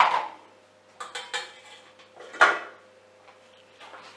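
Kitchenware clattering as it is handled and set down on the counter: plastic containers and a stainless steel mixing bowl knocking and clinking in a handful of separate knocks, the loudest about halfway through.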